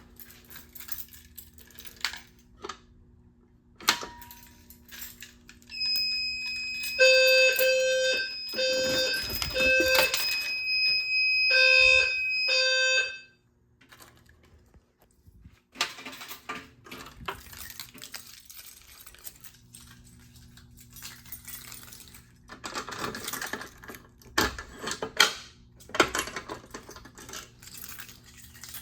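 A System Sensor low-frequency fire alarm sounder blaring its 520 Hz tone in short on-off pulses, together with a steady shrill higher-pitched alarm tone, for about seven seconds, then cutting off abruptly as the alarm is silenced. The rest is faint clicking and clattering.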